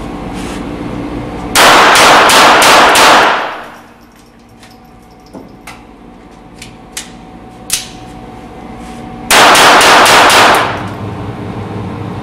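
Beretta 87 Target .22 LR semi-automatic pistol firing two quick strings of about five shots each, the strings some seven seconds apart, the reports echoing in an indoor range and overloading the recording. A few light clicks fall between the strings.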